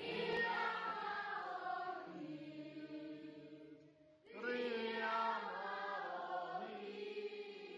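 A class of children singing together in chorus, a song in Welsh, in two long phrases with a short break about four seconds in.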